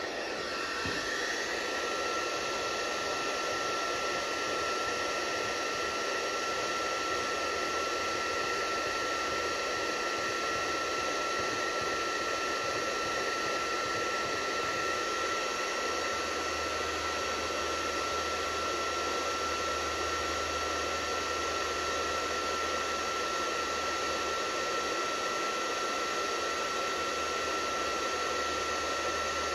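Handheld electric heat gun running steadily, its fan blowing with a constant high whine, used to heat fiberglass resin so that it sets.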